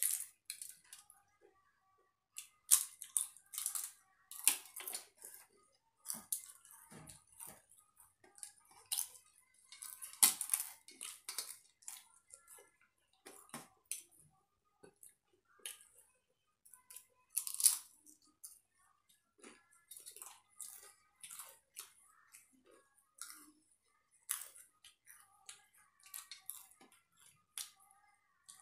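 Close-up eating sounds: irregular crisp crunches of fried snacks such as papad being bitten and chewed, with fingers clicking and scraping on steel plates.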